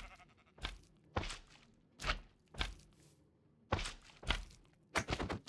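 A series of dull knocks or thuds at an uneven pace, about one or two a second, some coming in quick pairs.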